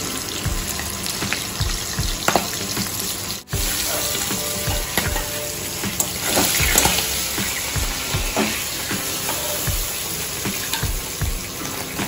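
Pieces of hilsa fish frying in hot oil in a pan: a steady sizzle with small knocks scattered through it. The sound drops out briefly about three and a half seconds in.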